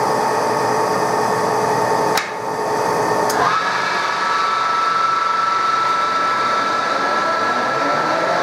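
TOS SN63B lathe running, with a sharp click about two seconds in and another a second later. The spindle then comes up to a higher speed, and its drive whines at one steady high pitch. This is the spindle speed being raised for a finer finishing cut.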